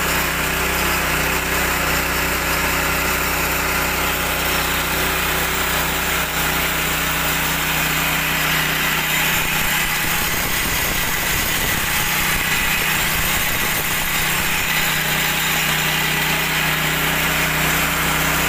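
KD 400 mini rice huller running steadily as it mills dried paddy into rice: a constant motor hum under a steady rushing hiss of grain passing through the machine and pouring from its outlet chute.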